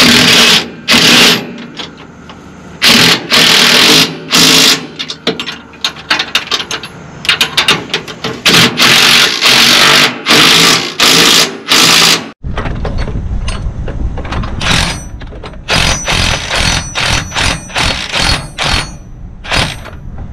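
Power impact wrench run in repeated short bursts, each under a second, tightening the nuts on the suspension mounting bolts. About twelve seconds in the sound changes abruptly to a steady low rumble with shorter bursts over it.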